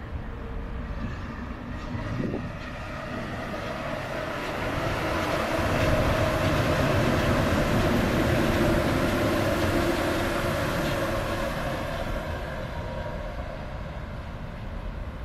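Rubber-tyred Paris Métro Line 6 train passing along the viaduct overhead: a rumble with a humming motor tone that builds about four seconds in, is loudest in the middle, and fades away near the end.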